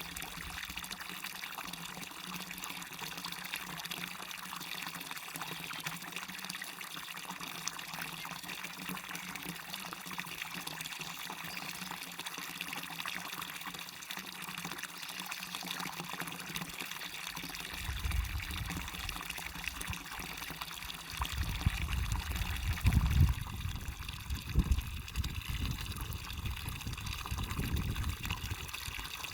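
Waterfall on a stream, water splashing and running steadily. Past the middle, an uneven low rumble comes and goes underneath it and gives the loudest moments.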